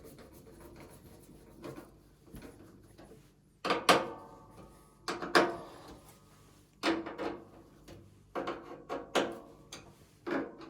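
A series of separate clicks and knocks, some ringing briefly, from plastic parts and a screwdriver being handled and screws being fitted into a washing machine's plastic soap dispenser housing.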